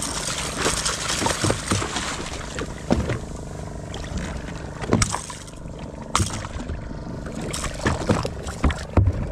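Water splashing as a hooked kingfish thrashes at the surface beside the boat, heaviest in the first couple of seconds, with several sharp knocks spread through the rest.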